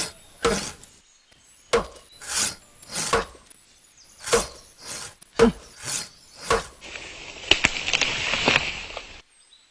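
Wood being cut in repeated rhythmic strokes, about one every two-thirds of a second, like a small saw working back and forth. About seven seconds in it turns to a steadier rasping for two seconds, then cuts off suddenly.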